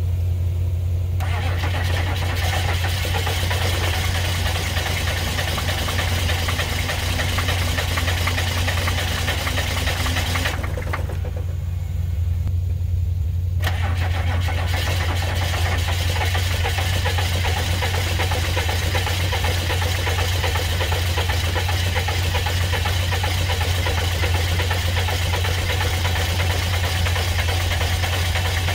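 Cold diesel engine of an old Chevrolet dump truck cranking over on jumper cables, in two long attempts with a pause of about three seconds between them, then catching and running rough with a knocking clatter. A steady engine hum from the donor truck idling runs underneath.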